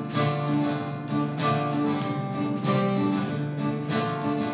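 Acoustic guitar strumming chords in an instrumental gap between sung lines, a strong accented strum a little over once a second with the chords ringing between.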